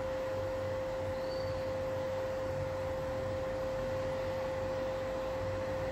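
Steady background hum with one constant mid-pitched tone, unchanging throughout.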